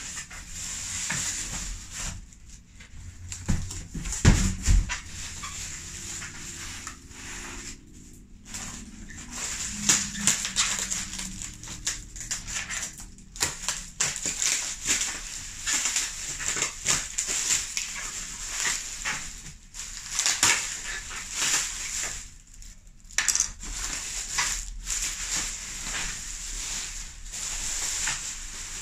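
Bubble wrap and plastic packaging rustling and crackling as a wrapped item is handled and unwrapped, with many small irregular crackles. One heavy thump comes about four seconds in.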